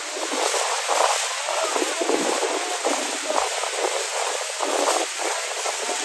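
Steady roar of falling water and wind on the microphone, with faint voices calling out within it.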